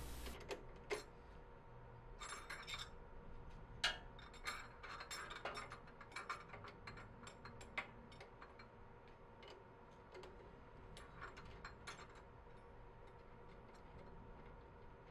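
Faint, scattered light metallic clicks and ticks, some in quick clusters, over a faint steady hum, from hand work at a small metal lathe set up with a drill chuck in the tailstock to drill the end of a steel rod.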